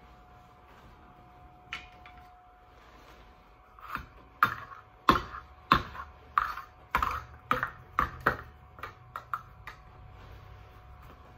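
A run of about a dozen light clacks and taps from about four seconds in to near the end, as small plastic cups are handled, knocked and set down on a tabletop. A faint steady hum runs underneath.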